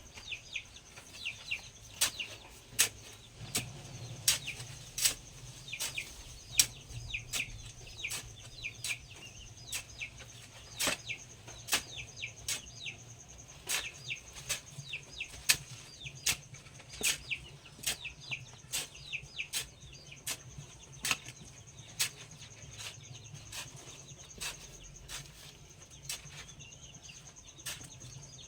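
Poultry calling in quick, high, short chirps, mixed with irregular sharp taps about once or twice a second, over a steady high-pitched tone and a low hum.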